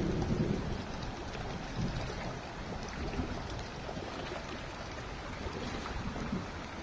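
Steady outdoor wash of noise with wind buffeting the microphone, heaviest in the first half second, and faint scattered ticks of water dripping after heavy rain.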